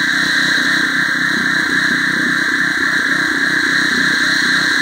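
Gas engine of a 3100 PSI pressure washer running steadily at constant speed.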